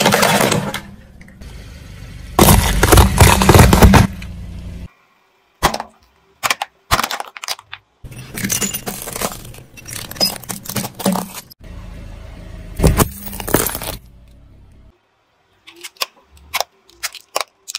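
A car tyre rolling over and crushing plastic toys and other small objects, one clip after another: sharp cracking and crunching over the low rumble of the rolling car, each clip cut off abruptly by a short silence.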